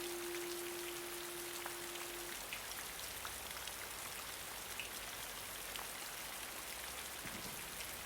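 Rain falling steadily, an even hiss with scattered drop ticks. A single held note from the guitar music carries over from before and stops about two seconds in.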